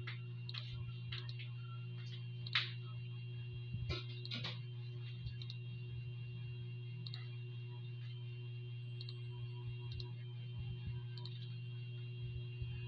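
Chewing, with short wet mouth clicks and smacks, most of them in the first few seconds, over a steady low hum.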